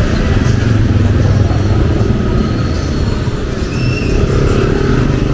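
Street traffic passing close: a steady engine rumble from motor vehicles, with one engine rising in pitch about four seconds in as it speeds up.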